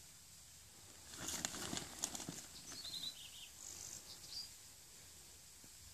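Quiet rustling and crunching of hands pressing damp compost, manure and straw into a wooden planter, mostly from about a second in to about three seconds in. Near the middle a bird calls a quick run of high, falling chirps.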